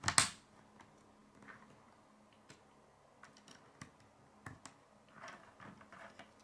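Plastic K'nex rods and connectors being clicked together by hand: one sharp snap right at the start, then scattered light clicks and taps.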